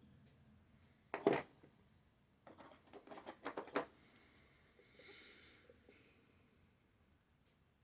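Small metallic clicks and rattles of lock picks working the pins of a Goal V18 dimple lock: one louder rattle about a second in, then a quick run of clicks, followed by a softer, higher-pitched sound.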